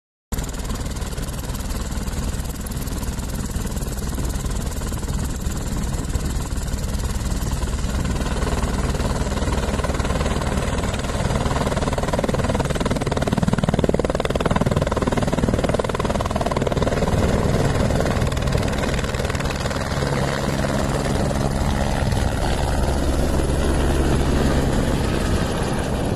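Airbus AS350 B3 helicopter's turbine engine and main rotor running for a deep-snow takeoff, getting louder from about halfway in as it lifts off.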